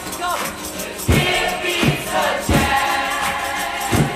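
Background music with several voices singing together over a heavy beat that falls about every second and a half.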